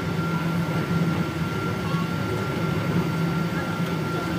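Boeing 777-200ER cabin noise heard from a window seat over the wing during pushback: a steady low hum with a thin, steady high whine above it.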